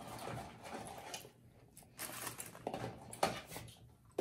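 Eating noises from a fast-food meal eaten at speed: chewing and sipping through a straw, with cardboard boxes and paper wrappers handled on the table. A sharp click stands out just after three seconds in.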